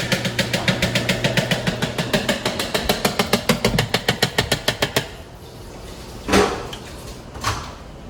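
Fast, even clacking strokes of a utensil beating a mixture in a bowl by hand, about six or seven a second for about five seconds, then two single knocks.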